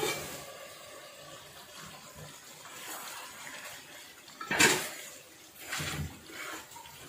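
Aluminium pot lid lifted off at the start, then a wooden spatula stirring and scraping beef curry in an aluminium pot, the loudest scrape about four and a half seconds in and another about six seconds in.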